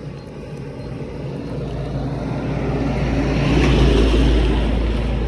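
Heavy vehicle engine running with a deep rumble, swelling to its loudest about four seconds in and then easing off a little.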